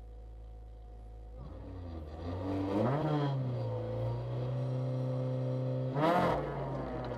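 Rally car's engine heard from inside the cabin, idling, then revved up about a second and a half in and held at raised revs while the car waits at the stage start. Near the end it gives a sharp, loud rise in revs as the car launches.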